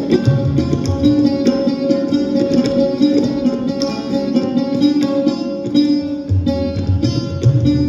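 Sitar and sarod playing dense, fast plucked phrases over a steady drone, with tabla accompanying in deep bass strokes.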